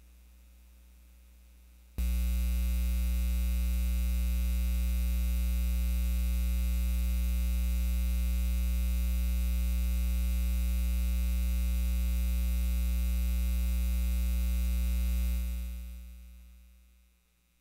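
Loud electrical mains hum, a steady low buzz with a stack of overtones, that switches on suddenly about two seconds in and fades away over the last couple of seconds.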